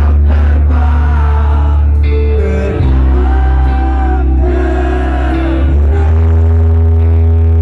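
Live rock band playing loudly, with singing over heavy bass.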